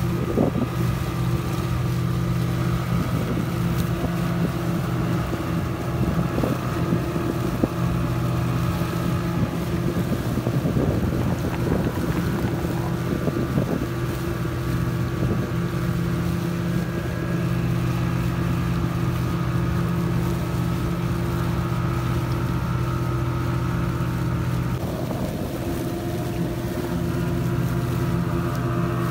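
Speedboat outboard engines running steadily at speed, with water rushing and splashing against the hull and wind on the microphone. The engine note changes near the end.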